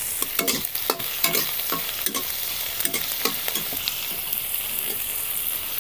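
Chopped onion frying with a steady sizzle in hot mustard oil in a kadhai as it is stirred, the stirring utensil scraping and knocking against the pan irregularly, two or three times a second.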